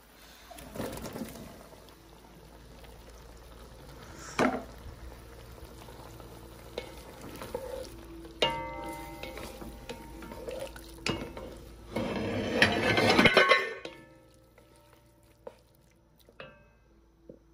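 Wooden spoon stirring pieces of meat in an aluminium pot, with a few sharp knocks against the pot, one leaving a brief metallic ring. The loudest part is a stretch of scraping and stirring near the end.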